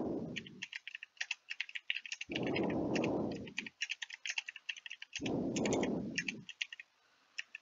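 Typing on a computer keyboard: fast, irregular key clicks. Three times a low rush of noise, each over a second long and louder than the keys, comes in on top: about two seconds in, about five seconds in, and near the start.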